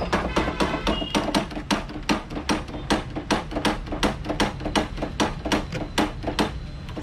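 Rapid, even hammering: sharp knocks at about four or five a second, over a low steady hum.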